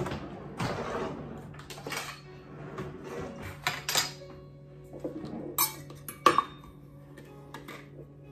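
Kitchenware clattering and clinking as dishes and utensils are handled, in a run of irregular knocks and sharp clinks. The sharpest clink comes a little past six seconds in.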